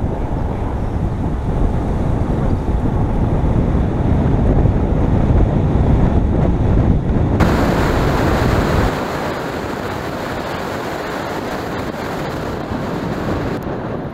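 Loud wind rushing over the microphone of a camera mounted outside on the hood of a moving car, a rumbling hiss. About seven seconds in it changes abruptly to a brighter, thinner hiss with less low rumble.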